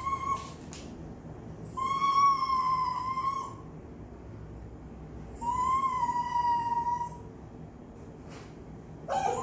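Chinese Crested dog whining: two long, steady, high-pitched whines of about a second and a half each, a few seconds apart, with a short whine right at the start and another starting near the end.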